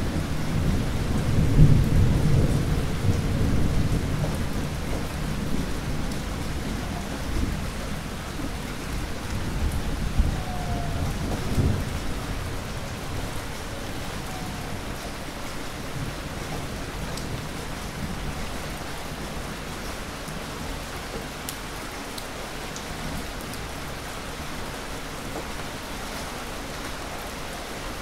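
Heavy rain falling steadily, with rolling thunder rumbling through the first half, loudest about two seconds in and again around ten to twelve seconds in, then easing off to rain alone.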